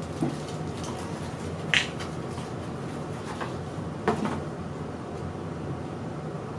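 Product packaging being handled and opened by hand: a few short clicks and knocks, the sharpest nearly two seconds in, over a steady low hum.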